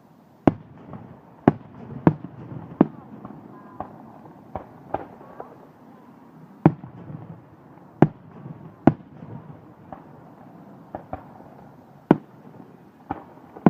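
Fireworks going off: irregular sharp bangs, a dozen or more, some loud and others fainter, over a low rumble of more distant bursts.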